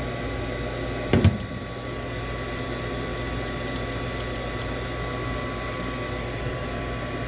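Furnace draft inducer motor running with a steady hum and a thin whine, with one sharp knock about a second in.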